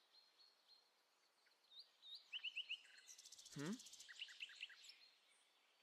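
Faint birdsong: scattered short chirps and quick trills, with a buzzing trill in the middle and one short call that slides down in pitch about three and a half seconds in.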